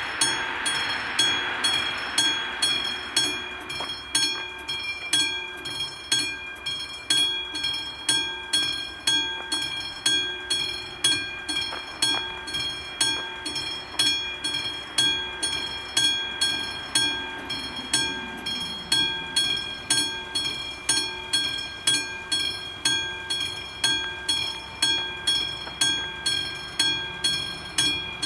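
Level-crossing warning bell at an AŽD 71 signal ringing in a steady series of strikes, about three every two seconds. It warns that a train is approaching the crossing.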